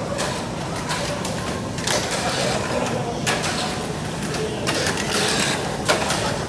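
Tamiya Mini 4WD cars running on a plastic multi-lane track: small electric motors buzzing steadily, with repeated plastic clacks as the cars hit the lane walls, over faint crowd chatter.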